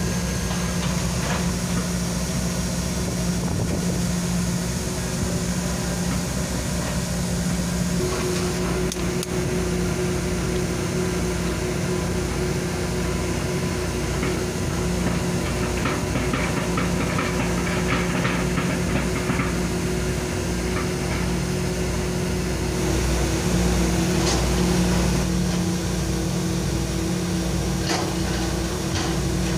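Hitachi long-reach excavator working, its diesel engine running steadily with a low hum, a steady whine joining about eight seconds in. A few faint knocks come near the end.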